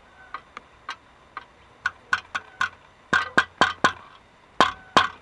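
Cracked sheet-metal flexplate of an Audi 2.8 engine clinking and knocking with short metallic rings as it is moved, about fifteen irregular clicks that grow louder from about three seconds in. The loose play comes from cracks in four places, and the owner finds this is the cause of the engine knock.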